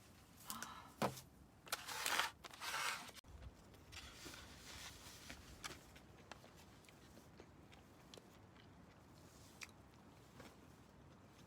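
Several sharp clicks and short rustling, crunching noises in the first three seconds, cut off suddenly, then a faint steady hiss with a few small ticks.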